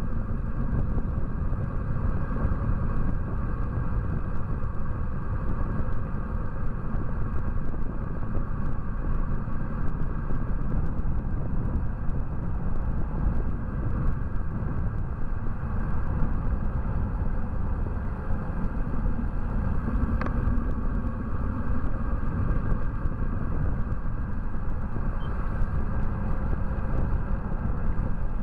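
Steady low rumble of wind buffeting a bike-mounted camera's microphone, mixed with tyre and road noise as the bicycle rides along a paved mountain road.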